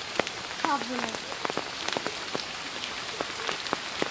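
Steady rain falling, with many individual drops landing close by as sharp ticks over the hiss.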